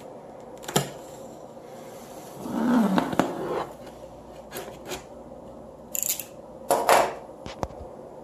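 A utility knife slitting the packing tape along the seam of a cardboard box: one longer scratchy cut a little over two seconds in, among short taps and scrapes of the blade and box.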